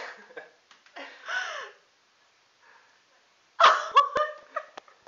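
A woman gasping and crying out in surprise and emotion: a short cry that bends in pitch about a second in, then a louder high-pitched cry about three and a half seconds in.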